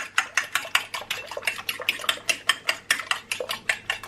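Eggs being beaten in a bowl: a utensil clicking rapidly and evenly against the bowl, about eight strokes a second.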